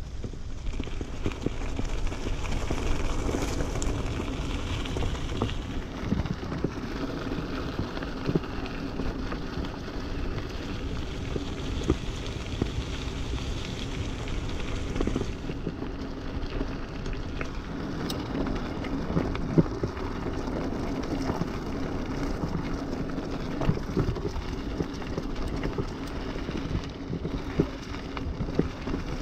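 GT Avalanche mountain bike rolling fast along a gravel and dirt trail: continuous tyre noise over the gravel, with frequent small knocks and rattles from the bike as it goes over bumps.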